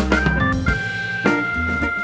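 Instrumental background music with a drum beat and a bass line; a long held high note comes in about halfway.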